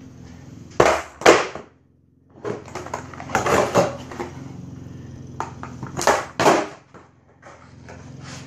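Skateboard on a concrete floor during freestyle tricks: the board knocks and clacks sharply as it is flipped and landed, twice near the start, in a quick cluster around the middle, and twice more a little later. A low rumble runs between the knocks and stops briefly about two seconds in.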